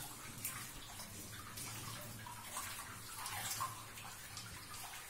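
Shallow water trickling and splashing over a cave's rock floor, with small irregular splashes.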